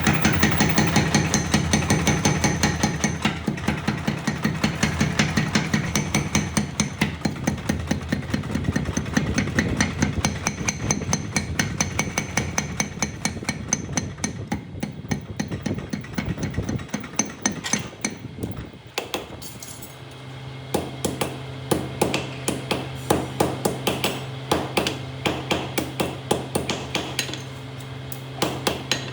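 Rapid, steady hammering of metal at a blacksmith's forge, as a sickle is forged. The blows pause briefly past the middle, then resume at a slower pace over a steady low hum.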